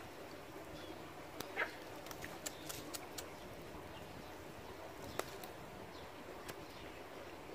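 Faint, scattered clicks and taps, about eight in all, from handling a freshly landed tilapia and the fishing tackle.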